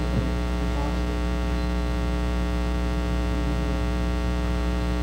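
Steady electrical mains hum, a low buzz with a ladder of overtones that holds level throughout.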